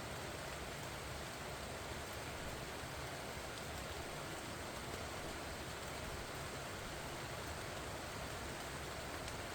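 Steady rain falling on pumpkin vines, an even hiss of raindrops that does not let up.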